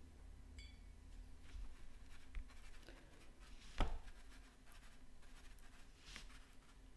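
Watercolor brush stroking and dabbing on paper in faint scratchy strokes, with one sharp tap about halfway through.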